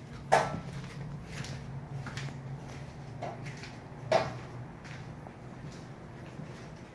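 Footsteps or knocks on a hard floor, about one a second, with a louder knock near the start and another about four seconds in, over a steady low hum.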